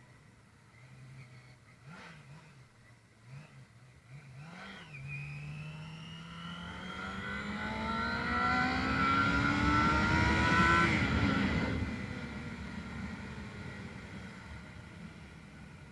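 Yamaha Phazer 250 (FZ250) inline-four engine running steadily with a few quick throttle blips, then revving up in one long, steady climb over about six seconds before the throttle closes and the revs fall away.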